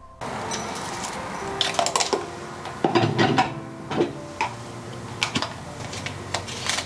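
Irregular clinks and knocks of kitchen utensils against a ceramic bowl, busiest in the first half.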